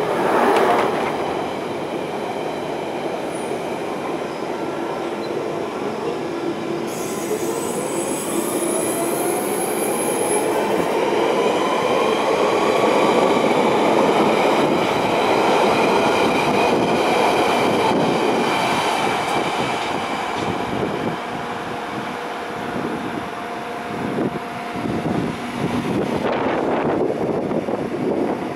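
London Underground Central Line 1992 Tube Stock train pulling away from the platform: the whine of its traction motors rises slowly in pitch as it gathers speed, over the rumble and squeal of steel wheels on the rails.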